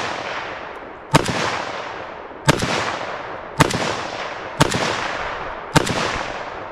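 Romanian SAR2 AK74 rifle in 5.45x39 firing slow, aimed single shots: five in a row, about a second apart, each report echoing and fading away before the next.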